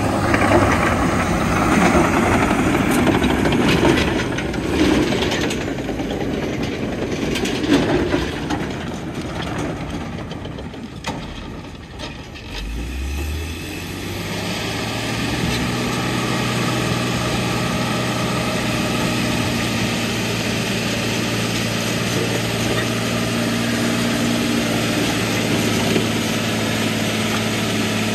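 1997 Dresser TD12-CXP crawler dozer with its Cummins 5.9 six-cylinder diesel, working with an uneven clatter in the first half. About halfway the engine revs up quickly from low speed and then runs steadily at high speed, close by.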